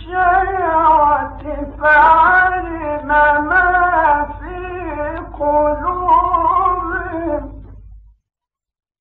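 A man's high voice reciting the Quran in slow, melodic style, with long ornamented held and wavering notes over a steady low hum from an old recording. The recitation stops about eight seconds in.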